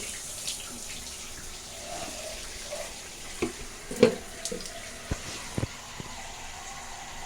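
Shower water running steadily, with a few sharp knocks and splashes scattered through it, the loudest about four seconds in.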